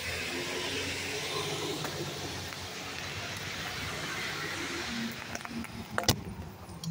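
Recycling truck running a short way up the street with a steady hiss, and one sharp click about six seconds in.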